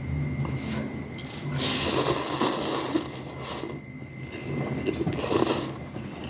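Noodles being slurped in noisy draws: a long one about one and a half seconds in, a short one a little later and another near the end, with soft eating sounds between.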